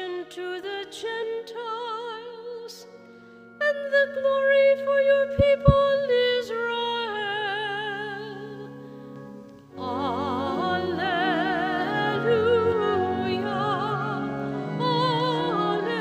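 Sung Gospel acclamation: a singer with strong vibrato over an accompaniment holding long notes, echoing in a large church. The music grows fuller about ten seconds in, and two soft thumps come about five and a half seconds in.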